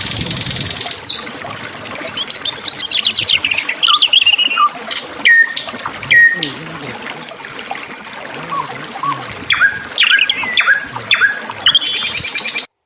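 Forest songbirds singing: a buzzy rasp for about the first second, then a varied run of chirps, trills and short whistles. The sound cuts off abruptly just before the end.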